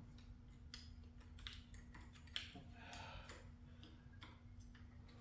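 Faint, scattered metallic clicks and taps of parts being handled and fitted on a motorcycle transmission case, with one sharper click about two and a half seconds in, over a faint steady hum.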